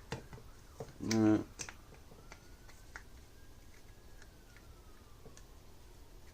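Small plastic clicks and taps of hands handling a mains plug and its lead, with a short pitched grunt from a man about a second in that is the loudest sound.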